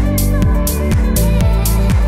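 Background electronic music with a steady beat, about two drum hits a second.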